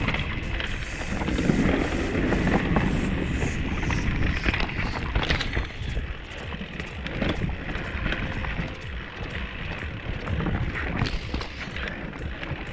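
A Specialized Stumpjumper Alloy mountain bike riding fast downhill over rough ground. Wind rushes over the microphone and the tyres run on dirt and rock, with frequent short knocks and rattles from the chain and frame over bumps.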